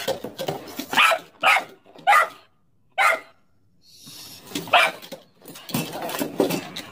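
A large dog barking in short, sharp barks, roughly one every half second. There is a brief pause a little after three seconds in, and then the barks come closer together near the end.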